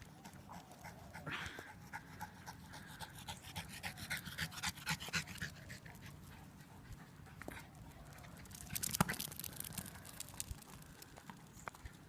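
A dog panting in quick, even breaths, heaviest in the middle of the stretch, with a few more breaths about three-quarters of the way through.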